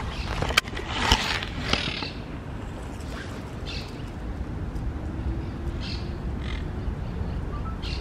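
Knocks and rustling from the camera being handled in the first two seconds, then short harsh animal calls repeated every second or so over a steady low rumble.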